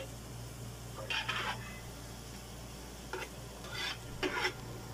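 A spoon stirring and scraping inside a stainless steel stockpot in a few short strokes, over a faint sizzle of onions, garlic and chili sautéing in oil.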